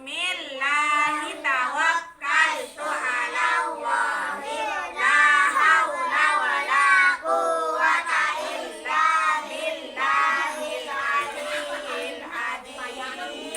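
A group of young children singing together in unison, a continuous sung melody with no break.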